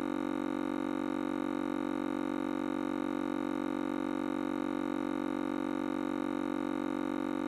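A steady, unchanging drone: one low tone with several higher tones held above it, at a constant level with no breaks.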